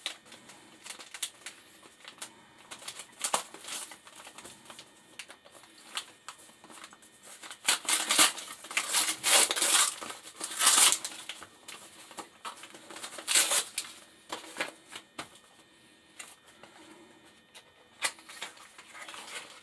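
Gift wrapping paper crinkling and tearing as a small wrapped box is unwrapped by hand, in irregular rustles that are loudest about eight to eleven seconds in and again around thirteen seconds.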